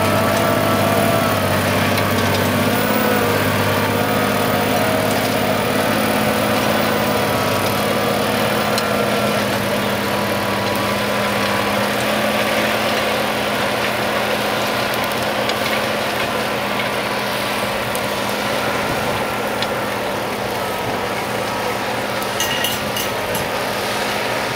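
Fendt 936 Vario tractor's six-cylinder diesel engine running steadily as it pulls a seven-shank subsoiler with disc gang through the soil, growing slightly fainter toward the end as the tractor draws away.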